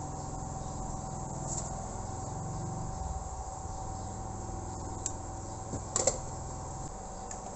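Hot air rework gun blowing steadily, a hum and hiss with a faint steady whine, as it melts solder to fit an SMD resistor on a circuit board. A short clatter of sharp clicks about six seconds in, as the gun comes away.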